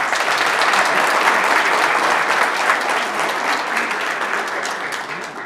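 Audience applauding, a steady wash of clapping hands that dies away near the end.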